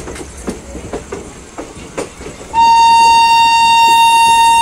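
Train wheels clicking irregularly over rail joints and points, then about two-thirds of the way in an Indian Railways electric locomotive's horn starts: one loud, steady blast that holds on.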